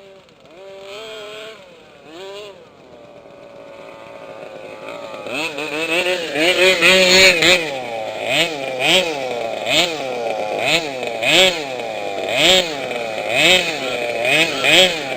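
Small two-stroke engine of a gas-powered 1/5-scale RC car, quieter at first, then from about five seconds in revving up and down about once a second as the throttle is worked.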